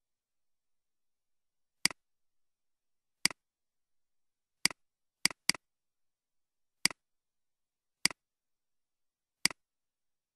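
Computer mouse button clicks, eight single sharp clicks at irregular intervals about a second or so apart, two of them in quick succession like a double-click about halfway through.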